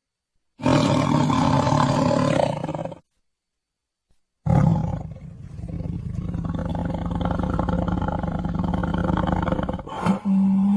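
Tiger roaring: one loud roar of about two and a half seconds, a short silence, then a longer, rumbling growl-roar lasting about five seconds, with a fresh, steadier-pitched call starting just before the end.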